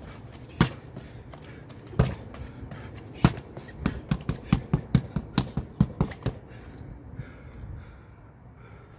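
Strikes landing on a hanging heavy punching bag. Three single heavy blows come about a second and a half apart, then a quick run of about ten lighter hits, roughly four a second, which stops about six seconds in.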